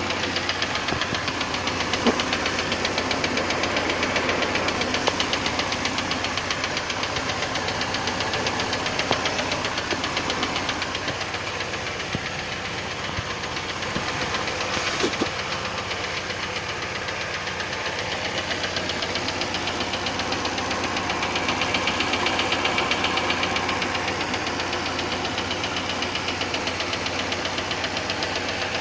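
ZMZ-406 four-cylinder petrol engine running with a steady, rhythmic knock whose cause has not been found. A few louder single clicks stand out over the running.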